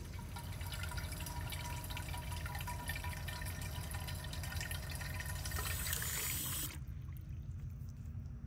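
Water from a garden hose spray nozzle running into a terracotta olla irrigation pot buried in the soil, filling it; the flow stops suddenly about two-thirds of the way through.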